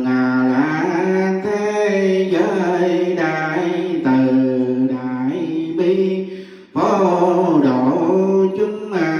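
Vietnamese Buddhist chanting: a voice sings long held notes that slide slowly between pitches, with a brief pause for breath about six and a half seconds in.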